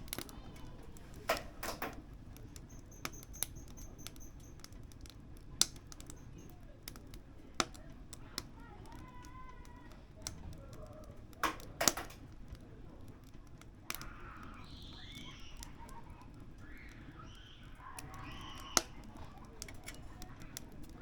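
Firewood crackling in a wood-burning stove: sharp, irregular pops and snaps, a few of them much louder than the rest, over a low steady rumble of the fire.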